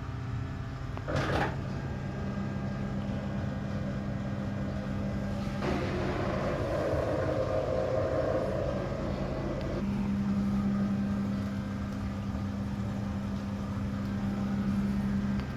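Front-loading washing machine draining: the drain pump's steady hum, with a short click about a second in and a louder, rushing stretch from about six to ten seconds in, during which the hum drops out and then returns.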